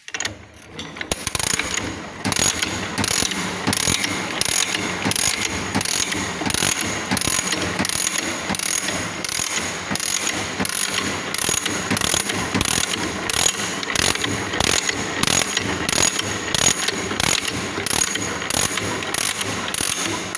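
Cutaway TVS 50 two-stroke engine and gearbox being turned over by hand crank, its gears and moving parts clattering with a steady run of rapid clicks. The sound starts suddenly and keeps an even pace.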